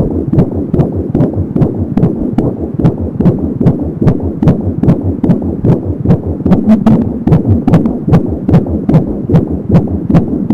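Fetal heartbeat at 21 weeks of pregnancy, picked up by an Angelsound home fetal Doppler: a rapid, even pulsing of about 170 beats a minute, close to three a second.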